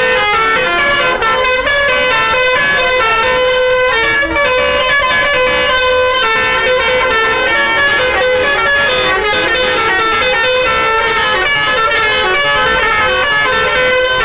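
Tour bus basuri horn, a melodic air horn, playing a tune of quickly changing notes without a break.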